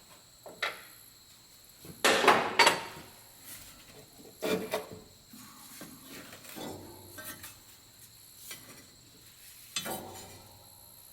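Metal clinks and knocks of hand tools and small hardware being handled. The loudest pair of knocks comes about two seconds in, with a sharper clink about four and a half seconds in and a few lighter taps spread after.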